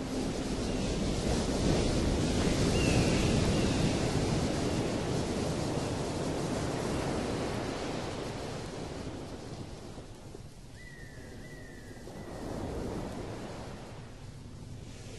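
Surf-like noise swelling and ebbing in the outro of an ambient electronic track, as the last held synth note dies away at the start. Two faint pairs of short falling chirps come through, a few seconds in and again near the end.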